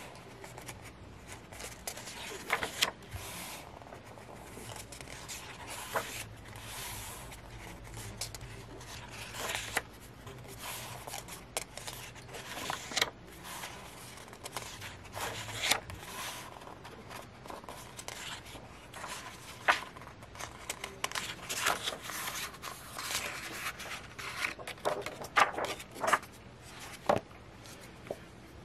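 Paper handling: the matte pages of an album photo book turned by hand, with repeated soft rustles, swishes and small taps as each page goes over.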